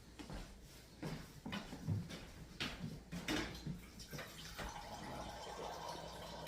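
A few scattered knocks and clatters, then water running steadily from a tap from about four and a half seconds in.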